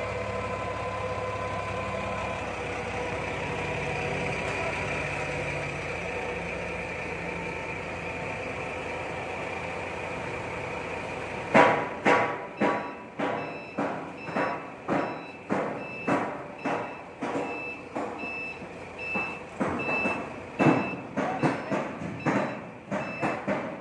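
A forklift engine running steadily. About halfway through, this gives way to a forklift's reverse alarm beeping sharply, a little over once a second, as it backs out of a metal shipping container.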